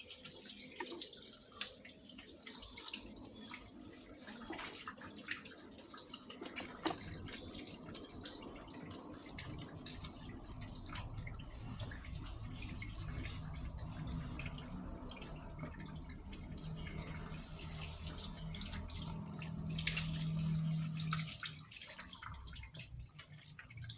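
Water running hard from a tap, a steady rush of flowing water. A low hum joins about halfway through and is loudest shortly before the end.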